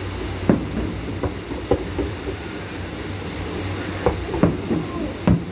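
Distant aerial fireworks bursting: several sharp, irregularly spaced bangs over a steady low background noise.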